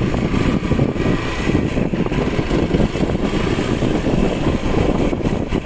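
Motorcycle running at low speed over a rough, rain-damaged dirt road, its engine blended with steady road noise.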